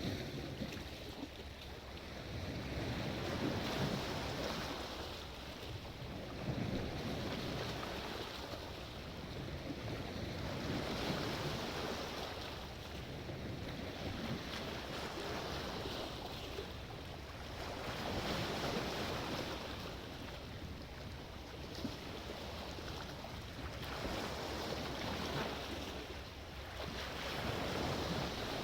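Sea waves washing in, the surge of water swelling and falling away every two to three seconds.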